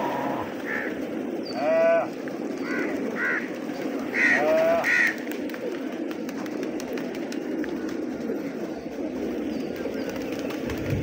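A large flock of domestic pigeons cooing in a steady, dense murmur. An animal bleats loudly twice, near 2 s and again about 4 to 5 seconds in, each call falling in pitch.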